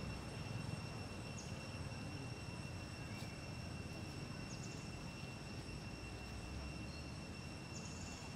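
Forest ambience: a steady high-pitched insect drone over a low rumble, with three short high chirps spread through it.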